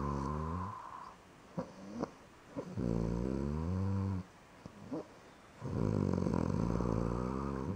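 Snoring: three drawn-out, pitched, rumbling snores, one every two to three seconds, each lasting well over a second. Short sharp snorts or clicks fall in the pauses between them.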